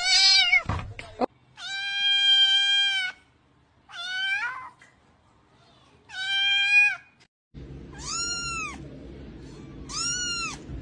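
Kittens meowing, one after another: about six high-pitched meows, some held for about a second, the last two arching up and down in pitch. A low steady hum runs underneath the last few.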